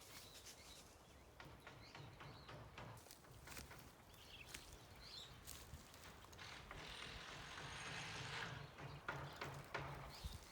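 Faint outdoor ambience with a few faint bird chirps about four to five seconds in, and scattered light clicks and rustles.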